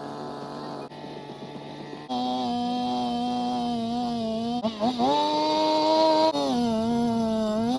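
Petrol post-hole auger engine running hard while boring into the ground. Its pitch rises as it revs up a little under five seconds in, then drops back about a second and a half later, and the level jumps abruptly several times.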